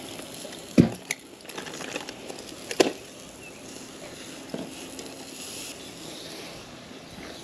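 Metal tongs knocking and clinking on the wire grate of a charcoal kettle grill while a foil tray is set down among cooking meat: a few sharp clinks, the two loudest about a second in and near three seconds, over a steady faint hiss.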